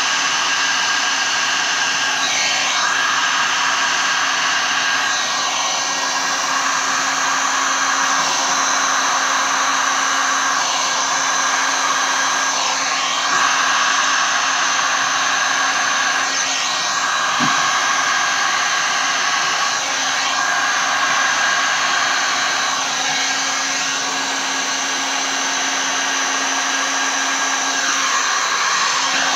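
Electric heat gun running, a steady rush of hot air with a whine, blown over poured resin to spread and move it; the air sound shifts slightly every two to three seconds as the gun is moved about.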